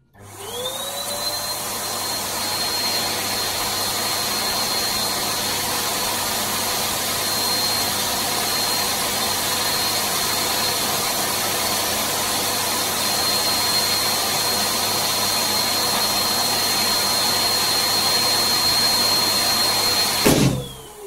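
Electric balloon pump switching on, its whine rising in pitch for a second and then running steadily as it inflates a 12-inch crystal balloon. About twenty seconds in, the over-inflated balloon bursts with a sharp bang, the loudest sound, and the pump's whine falls away after it.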